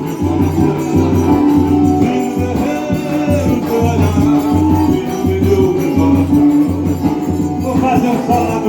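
Forró music with a steady, pulsing bass beat under a sustained melody.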